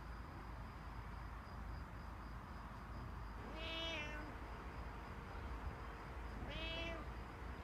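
A domestic cat meowing twice, about halfway through and again near the end, each meow a short call that rises and falls in pitch.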